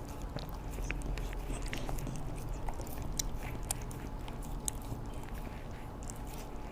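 A corgi eating, chewing vegetables, with irregular small clicking mouth sounds.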